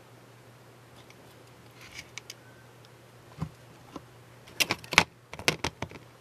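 Metal tweezers and small modelling tools clicking and tapping on a hard workbench: a few faint ticks, then a quick run of sharp clicks about four and a half seconds in, under a faint steady hum.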